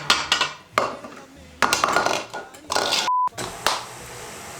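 Kitchen clatter of dishes and utensils, with several sharp knocks and clinks in the first three seconds. A short single-tone censor bleep about three seconds in, then a steady low hum.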